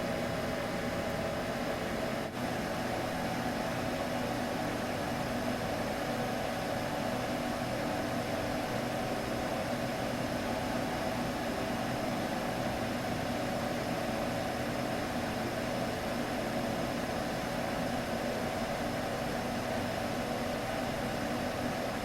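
Steady sleep-aid drone for a baby: an even hiss of white noise with a constant low hum, unchanging throughout, with one tiny click about two seconds in.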